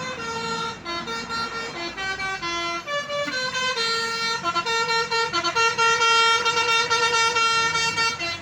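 A bus's multi-tone telolet basuri horn plays a tune. It gives a quick run of short notes, then a long held note from about four seconds in that stops just before the end.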